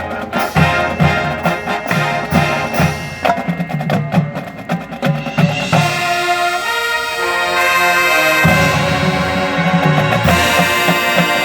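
High school marching band playing. A percussion passage of sharp drum and wood-block hits gives way, about six seconds in, to held chords from the brass and winds, and the drums rejoin under the full band near the end.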